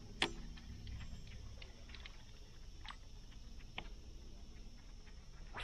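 A few light, scattered clicks and taps from fishing tackle handled in a kayak as the rod and reel are worked, the sharpest just after the start and a couple more in the middle, over a faint low rumble.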